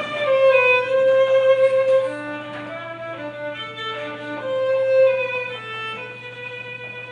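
Violin playing a slow melody of long held notes, fading near the end, over a steady low hum.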